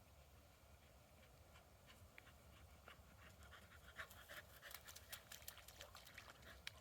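Faint low, steady rumble of a ship's engine in the distance. From about halfway through, a scatter of soft, sharp clicks and crackles comes more and more often.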